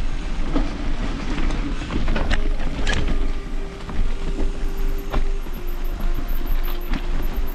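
A mountain bike ridden over a rough, rocky dirt trail, heard from a camera on the bike or rider: heavy wind rumble on the microphone, tyre and trail noise, and sharp rattles and knocks as the bike hits rocks. A steady hum comes in about three seconds in.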